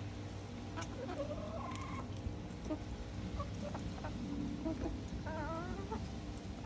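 Hens clucking as they feed on strawberries: several short calls, then one longer wavering call a little past five seconds in.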